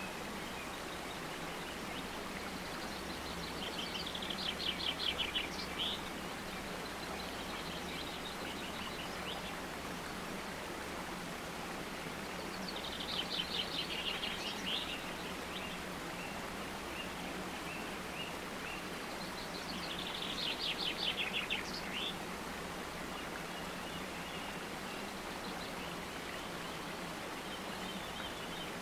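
Nature-sound background: a steady hiss with a faint low hum, over which a songbird sings a fast trill three times, each about two seconds long.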